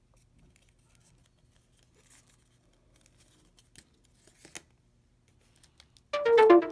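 Faint rustling and crinkling of paper as an origami model is handled and folded, with small clicks and a sharper crackle about four and a half seconds in. Loud electronic music with a beat cuts in suddenly near the end.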